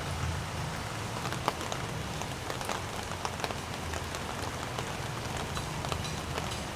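Steady rain falling, with many scattered sharp drop ticks over a low hum.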